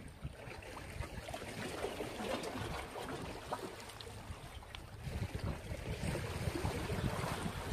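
Small sea waves washing against the rocks of a breakwater, with wind buffeting the microphone.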